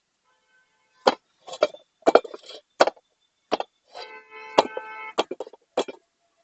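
Sharp knocks and taps as a new tubeless tyre is worked onto a motorcycle wheel rim by hand, with a metallic ring from the rim for about a second, about four seconds in.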